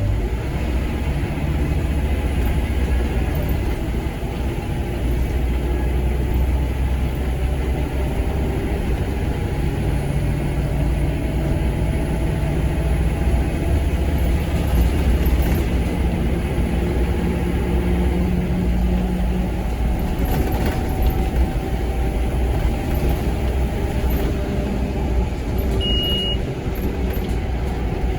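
Scania K230UB Omnilink bus's five-cylinder diesel engine, heard from on board, pulling hard through the ZF Ecomat automatic gearbox after a kickdown. One short high beep sounds near the end.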